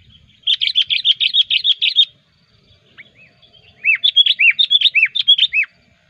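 Sooty-headed bulbul calling loudly in two bursts of rapid chattering notes, each about a second and a half long, the second burst made of looping, down-slurred whistled notes.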